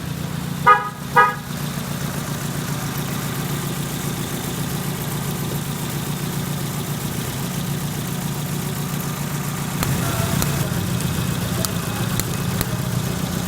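Car engine idling steadily, its level rising slightly about ten seconds in. About a second in, two short, loud horn-like beeps sound in quick succession.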